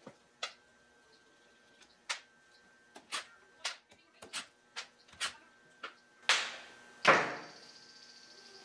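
Sharp clicks and light metal taps of bolts and tools being handled while the differential cover bolts come out. Two louder metal clanks follow, about six and seven seconds in; the second rings on with a high tone.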